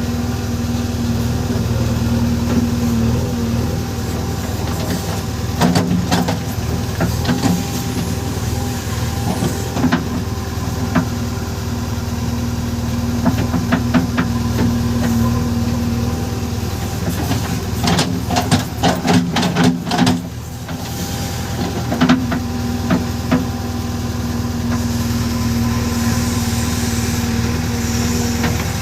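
JCB 3DX backhoe loader's diesel engine running steadily under work, with metallic knocks and clanks from the machine at intervals, bunched into a quick rattle about two-thirds of the way through.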